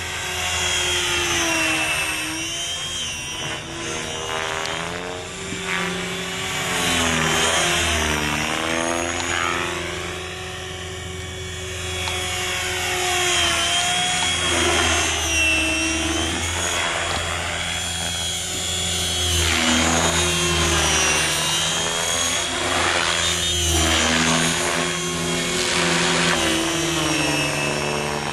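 Electric Compass Atom 500 RC helicopter in flight: a steady whine from the motor, gears and rotor blades, its pitch bending up and down over and over as it swoops and manoeuvres, with several louder swells along the way.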